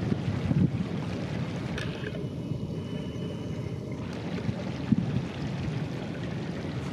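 Wind buffeting the microphone over the steady wash of ocean surf and shallow stream water.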